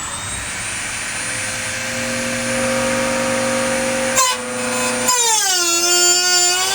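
High-speed power tool cutting the side marker opening in the car's body. It spins up with a rising whine, runs at a steady pitch, stops briefly a little past four seconds in, then restarts with its pitch dropping and wavering under the cutting load.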